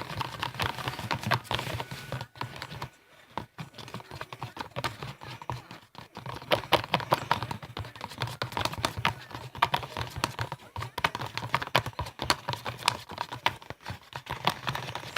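A utensil stirring a glue and baking-soda slime mixture in a cup, making rapid, irregular clicking and tapping against the cup, with a short pause about three seconds in.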